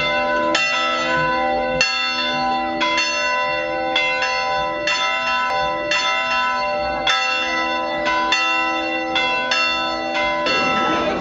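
Church bells ringing in an irregular peal, a new strike about once a second with each bell's tone ringing on over the next. The peal stops shortly before the end.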